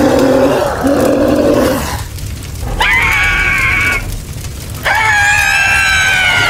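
A cartoon girl's wordless vocal sounds: two low, held utterances in the first two seconds, then two high, drawn-out cries of about a second each.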